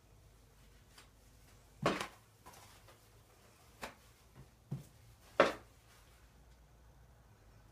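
A few short rustles and light knocks from hands handling paper towels and their roll. The two loudest come about two seconds in and about five and a half seconds in.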